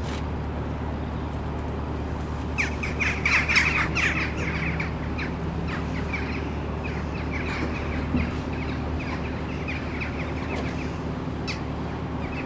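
A flock of birds calling, many short calls in quick succession: thick a few seconds in, then thinning out. Beneath them, the steady low hum of a narrowboat's diesel engine running.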